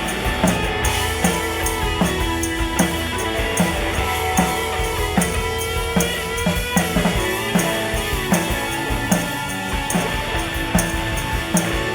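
Rock band playing live: an instrumental passage with no singing, drum kit keeping a steady beat under guitars, with a sliding lead line about halfway through.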